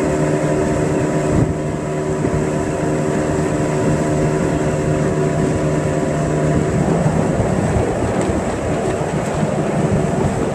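Motorboat engine running steadily at speed, a constant hum under wind and water rushing past the hull; about seven seconds in the hum blurs into rougher rushing noise.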